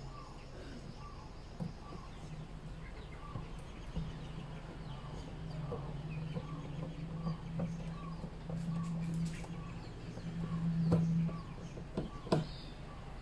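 A chicken clucking softly and steadily, about two clucks a second, over a low hum that grows louder and drops away about eleven seconds in. A few sharp clicks, the loudest two near the end.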